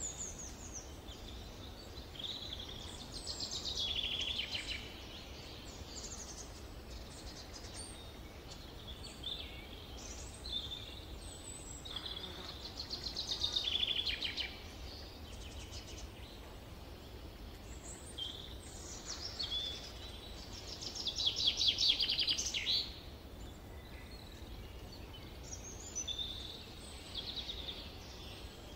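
Summer forest ambience: several songbirds calling and singing. A loud song phrase of rapid notes comes back about every eight to nine seconds, over a steady low rumble of background noise.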